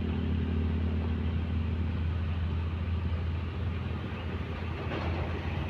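Diesel engine of heavy earthmoving equipment running steadily with a low drone, with a brief rush of noise about five seconds in.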